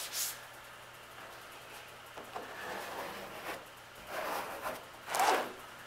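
Yellow plastic body-filler spreader scraping across a paper mixing pad smeared with body filler, in a few short strokes, the loudest a little before the end. Near the start, a gloved hand brushes over the primed hood.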